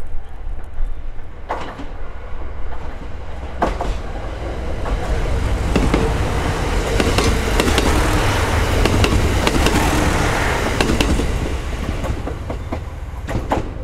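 A diesel train passing close by on the tracks, its running noise and wheel clicks over the rail joints building up and at its loudest mid-way, then fading as it moves off.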